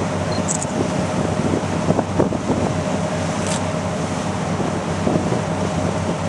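Small boat's engine running steadily, with wind buffeting the microphone.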